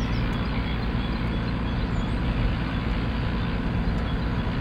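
Combine harvester running steadily, its engine and threshing machinery making a continuous low mechanical noise.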